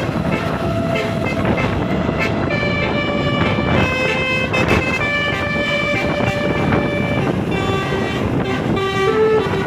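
Bus basuri, a multi-trumpet musical air horn, playing a tune: a string of held notes that change pitch every half second to a second or so, over a steady low rumble.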